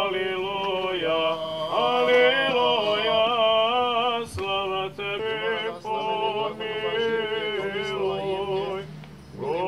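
Orthodox priests chanting a memorial service, unaccompanied male voices holding long, steady notes in phrases with short breaths between.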